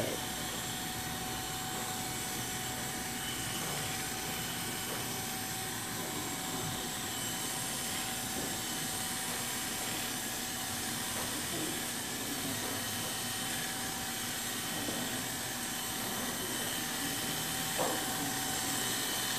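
Corded electric hair clippers running steadily with an even hum, cutting hair clipper-over-comb.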